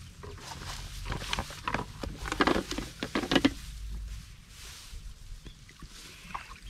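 Rice plants rustling and crackling as they are brushed and pushed aside, a cluster of irregular strokes between about one and three and a half seconds, over a low steady rumble.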